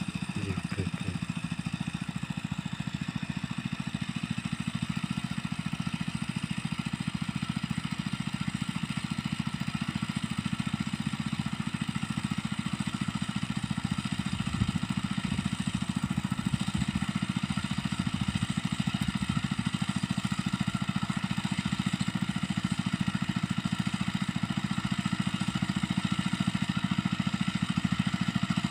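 Small engine of a mini rice-field tiller running steadily.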